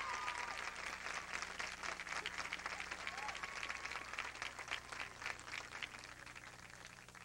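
Crowd in stadium stands applauding, with a few cheers and a whistle, the clapping thinning and dying away near the end.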